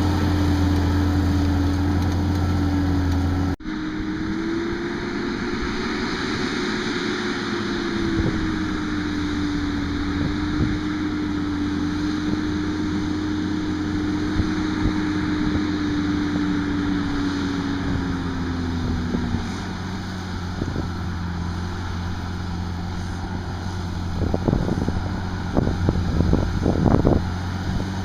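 Fendt 936 tractor engine running steadily under load while ploughing, a constant drone. The sound changes abruptly about three and a half seconds in, the engine note sags lower about two-thirds of the way through, and a few sharp knocks come near the end.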